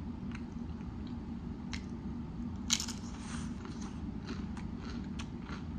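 Close-up mouth sounds of biting into and chewing a grinder sandwich: soft wet chewing with small crunches and one louder crunch about three seconds in.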